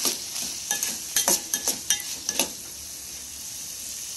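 Metal spoon scraping and clinking against a steel pot while stirring vegetables frying in ghee, over a steady sizzle. The stirring stops about two and a half seconds in, leaving only the sizzle.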